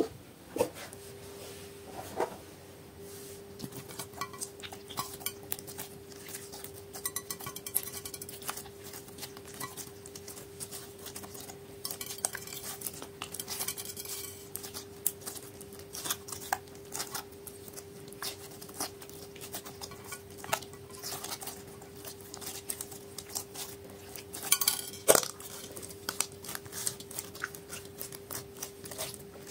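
Slime full of beads and glitter being mixed in a glass dish: irregular clicks, clinks and scrapes, with a louder run of clicks about 25 seconds in, over a faint steady hum.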